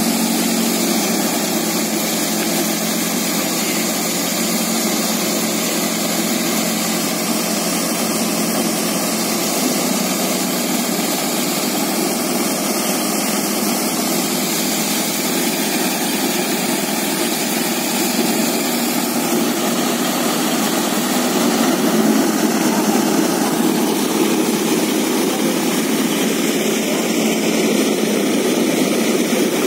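Tractor-driven wheat thresher running steadily under load, the drone of its threshing drum and blower mixed with the tractor engine's hum as sheaves are fed through it.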